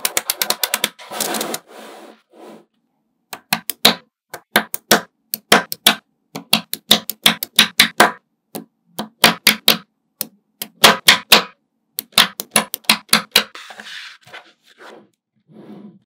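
Small magnetic balls clicking together in quick runs of sharp snaps, pausing briefly between runs.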